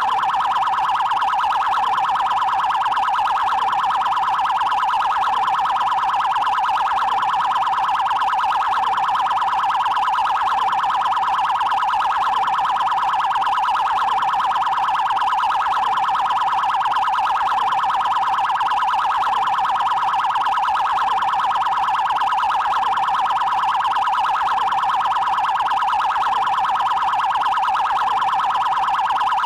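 Brazilian Federal Highway Police (PRF) siren sounding its fast 'trail' priority tone: a very rapid, even warble that never pauses or changes.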